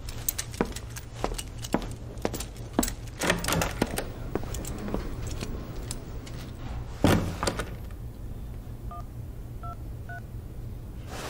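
Scattered clicks and knocks, with a louder thump about seven seconds in. Near the end come three short touch-tone beeps from a phone keypad as a number is dialled, each beep a little higher than the last.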